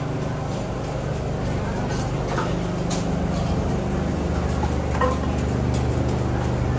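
A steady low mechanical hum like an engine or motor running, with a few faint sharp clicks.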